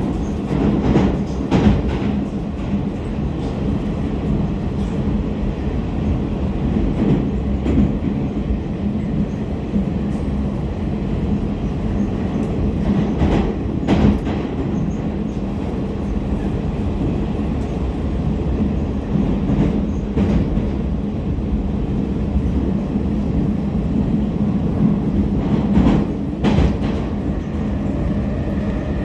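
Inside an 81-726.1 "Baltiets" metro car running between stations through a tunnel: the steady rumble of wheels and running gear, with a constant low hum and a few sharp knocks from the track.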